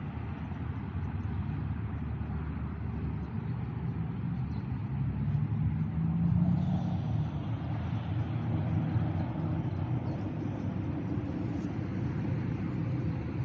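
Steady low rumble, like a vehicle engine running, growing louder about six seconds in and then easing back.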